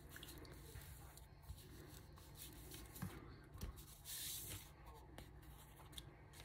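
Faint handling of a paper envelope on a tabletop: soft taps and rubs as it is glued and smoothed down by hand, with a brief paper rustle about four seconds in.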